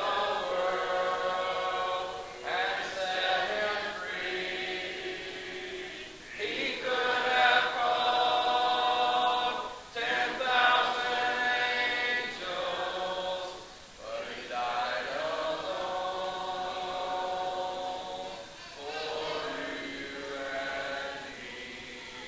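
Congregation singing a hymn a cappella, in unaccompanied phrases of about four seconds each with short breaks between them.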